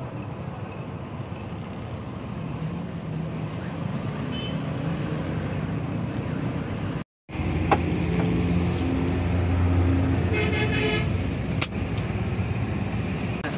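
Road traffic: vehicle engines running, with a short horn toot about ten and a half seconds in. The sound cuts out for a moment a little after seven seconds, then the engine hum is louder.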